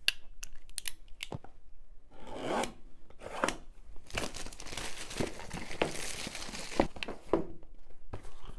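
Cardboard box and its packaging being torn open and handled, a run of tearing and rustling, thickest in the middle. A few light clicks come first, as a folding multi-tool is handled.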